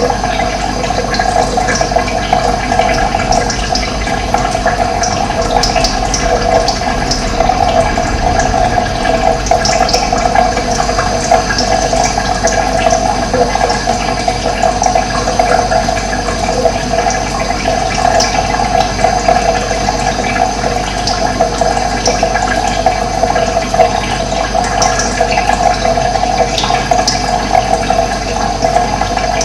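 Running water rushing steadily, with birds chirping here and there above it.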